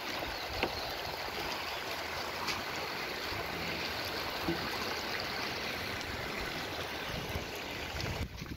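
Clear, shallow river running over a stony bed and small rapids: a steady rush of water.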